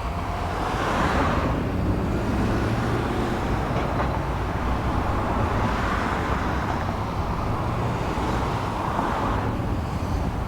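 Road traffic noise: a steady low rumble, with vehicles swelling past about a second in, around six seconds and again near nine seconds.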